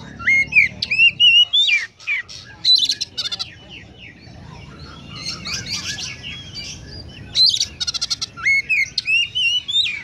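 Oriental magpie-robin singing: loud whistled phrases that sweep up and down, broken by fast chattering runs, in a song stocked with imitations of Eurasian tree sparrow calls. The song is loud over the first three seconds, softer in the middle, and loud again from about seven seconds in.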